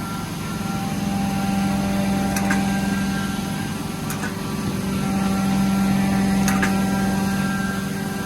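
Carpet-cleaning extraction machine running with a steady hum, with faint clicks every two seconds or so.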